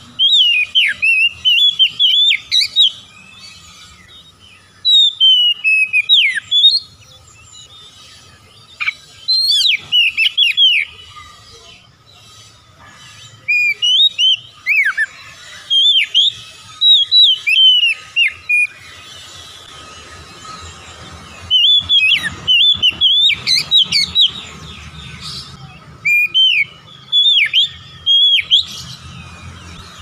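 Oriental magpie-robin (kacer) singing: about seven phrases of clear whistled notes sweeping up and down, each lasting a couple of seconds, with short pauses between them.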